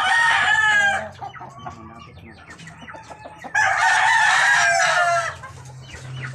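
Gamefowl roosters crowing twice: one crow at the start and a second, longer one about three and a half seconds in, each lasting over a second. Softer clucking comes between the crows.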